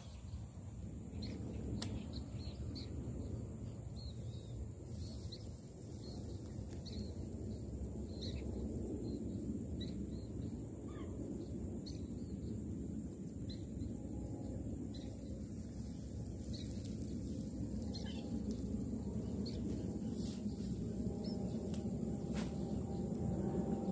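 Outdoor wetland ambience: scattered short bird chirps over a steady low background noise, with a faint steady high hiss.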